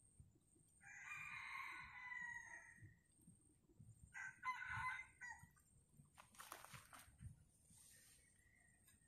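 A rooster crowing: one long crow beginning about a second in, then a shorter, broken call around four seconds in. A brief rustling noise comes a couple of seconds later.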